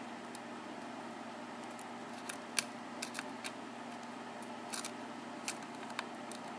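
A lock pick working the pin stacks of a 5-pin Manko mortise cylinder: scattered small metallic clicks and ticks as pins are lifted and set during single-pin picking, the loudest about two and a half seconds in, over a faint steady hum.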